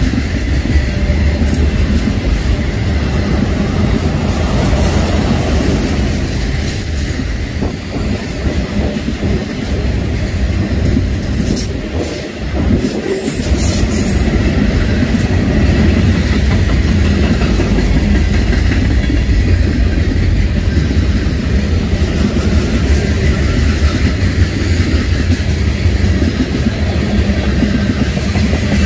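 Freight train cars rolling past: autoracks, tank cars and covered hoppers, their steel wheels running on the rails in a steady low rumble that eases briefly about twelve seconds in.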